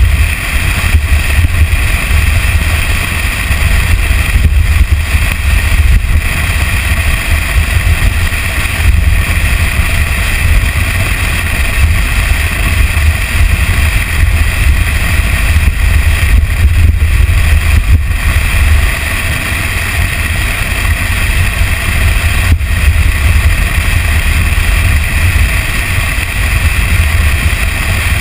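Toyota Tacoma pickup driving fast along a sandy dirt trail, heard from a hood-mounted camera: a loud, steady rumble of engine, tyres and wind.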